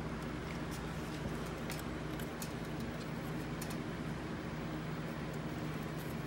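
A steady low hum with an even hiss from running bench equipment, with a few faint light clicks as a circuit board is handled.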